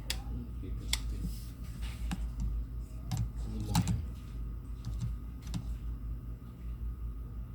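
Scattered light clicks and taps, about one a second and irregular, over a steady low hum.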